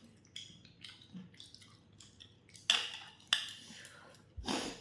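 Eating sounds: soft chewing and small clicks of dishes, with two sharper clinks a little over halfway through and a short rustle near the end.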